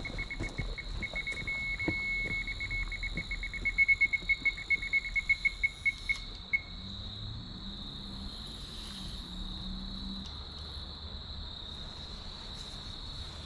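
Carp bite alarm beeping rapidly as a fish takes line, the beeps stopping about six and a half seconds in when the rod is picked up. A steady cricket trill runs underneath.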